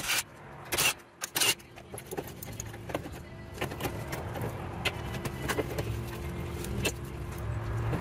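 A cordless driver whirring in three short bursts in the first second and a half, backing out a screw on the fountain's solenoid valve. Then many small clicks and rattles as wire terminals and plastic push-fit water fittings are worked loose by hand.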